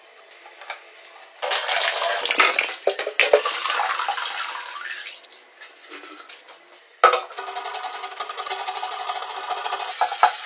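Water splashing and pouring off a rusty Honda CG125 fuel tank as it is lifted out of an electrolysis rust-removal bath, with a few knocks. After a sharp knock, a scouring pad rubs the wet tank in an even rhythm of about four strokes a second.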